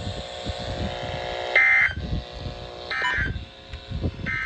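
Emergency Alert System end-of-message bursts on NOAA Weather Radio: three short digital data squawks about a second and a half apart, closing the severe thunderstorm warning. A low steady buzz runs before the first two bursts.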